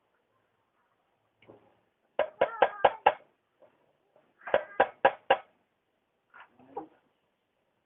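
Two quick runs of sharp knocks, about five and then four, each knock with a short ringing tone, followed by a couple of fainter knocks near the end.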